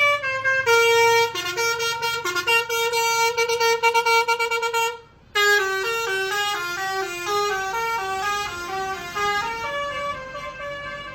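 Basuri telolet musical bus horn playing a quick tune of stepped, multi-tone horn notes. It breaks off for a moment about five seconds in, then plays on with another run of notes that fades somewhat near the end.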